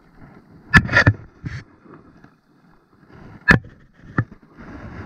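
Handling noise at the waterline while a caught fish is held in the hand: about five sharp knocks and splashes, the loudest about a second in and again about three and a half seconds in, over faint lapping water.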